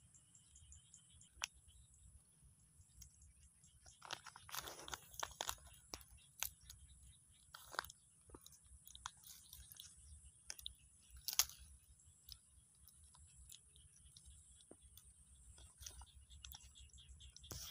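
Faint scattered crackles and clicks of a woven plastic sack being handled and shifted by a baby macaque sitting on it, with one louder crackle about eleven seconds in.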